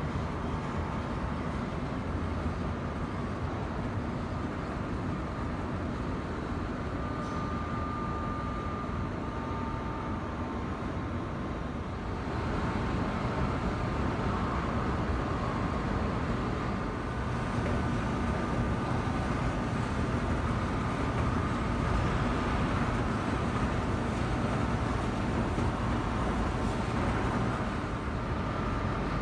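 Steady hum and rumble of a large, empty subway station's machinery, with faint steady whining tones above it. It grows a little louder about twelve seconds in, as the platform area opens up.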